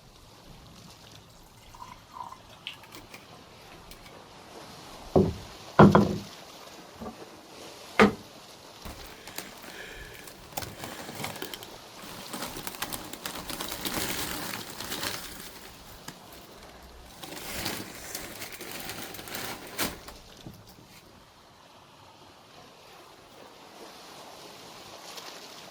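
A few knocks and thuds, then liquid being poured in two spells of splashing, each lasting a few seconds.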